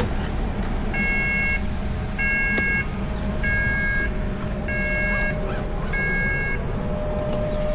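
Five electronic beeps, each about half a second long and about 1.25 seconds apart, over a steady vehicle engine and road rumble.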